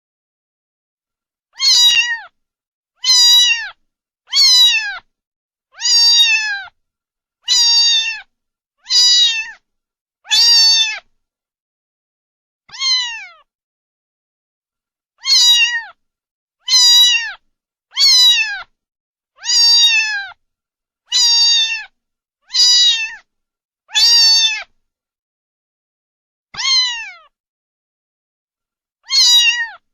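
Domestic cat meowing over and over, one short high call about every second and a half, each sliding down in pitch at its end. After every run of about seven meows comes a longer pause and a softer single meow.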